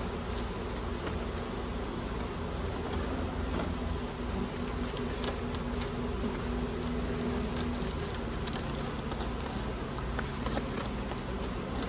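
Honeybees buzzing around an opened hive, a steady wavering drone, with a few light clicks here and there.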